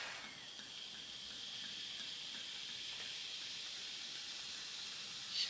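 Prosecco poured from the bottle into a rocks glass over ice, fizzing with a faint, steady hiss as it tops a Negroni Sbagliato.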